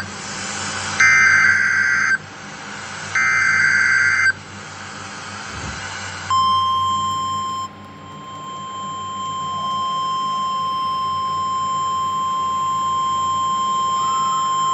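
Emergency Alert System signal on NOAA Weather Radio. Two bursts of the screeching SAME digital header data, each about a second long and a second apart, are followed about six seconds in by the steady single-pitch 1050 Hz warning alarm tone, held unbroken. Together they herald a special marine warning broadcast.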